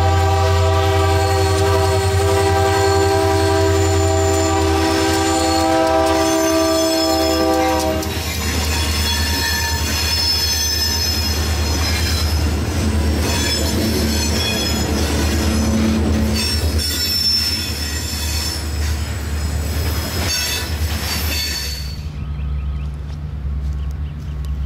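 A diesel locomotive's air horn sounding a held chord for about eight seconds, then the train rolling past with a rumble and wheel flanges squealing on the rails. Near the end the squealing stops abruptly, leaving a low steady hum.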